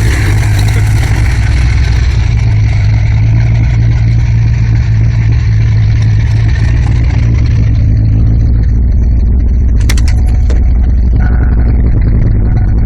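Fox-body Ford Mustang 5.0 V8 idling steadily, with a short click about ten seconds in. It runs without the noise that had come from incorrectly torqued rocker arms and a loose crankshaft pulley.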